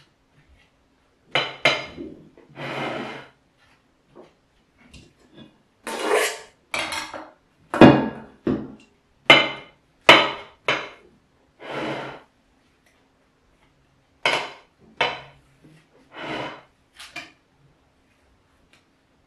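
Metal spatula scraping and knocking against a ceramic serving plate while whipped cream is smoothed around the base of a cake. There are short, sharp strokes in three clusters, with pauses between them.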